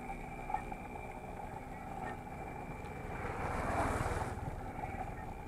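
Wind buffeting an action camera's microphone on a moving bicycle: a steady low rumble, with a louder swell of hiss about three to four seconds in.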